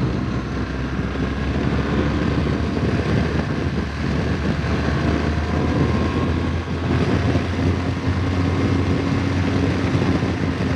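BMW R1200GS boxer-twin motorcycle engine running steadily at road speed, heard from the rider's position with wind noise over the microphone.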